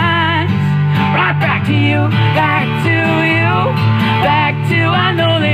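Live acoustic guitar being strummed, with a male voice singing a pop-rock ballad over it.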